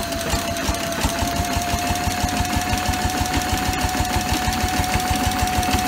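Antique Bessemer stationary engine running with a fast, even puffing beat while it belt-drives a dynamo under electrical load. A steady high whine runs over the beat.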